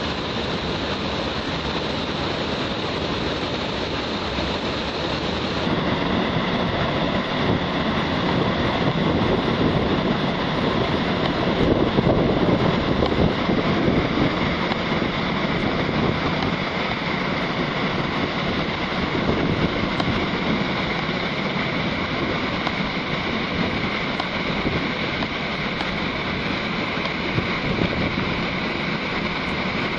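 Steady rushing of a waterfall, falling water pouring continuously into its pool.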